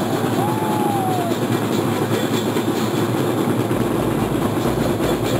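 Marching band drums played in a continuous rapid cadence, heard as a dense, steady, distorted clatter.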